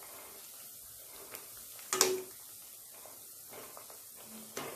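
Bread slices sizzling steadily as they deep-fry in oil in an aluminium kadai, being fried golden brown on each side. About two seconds in, a sharp ringing clink as the wire skimmer knocks the pan, and a lighter knock near the end.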